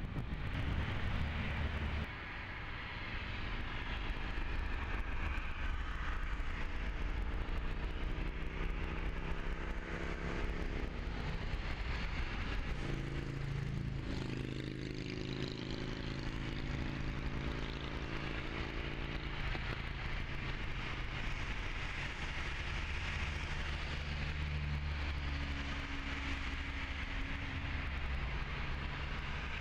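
Boeing 737 turbofan engines running on the runway: a steady jet drone with several humming tones that shift in pitch as the engines spool up and the airliner rolls for takeoff.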